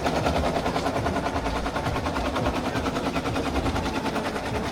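A rapid, steady mechanical rattle, about ten pulses a second.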